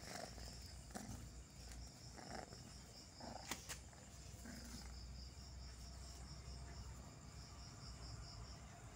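Crickets chirping faintly in a rapid, steady pulse, with a sharp click about three and a half seconds in.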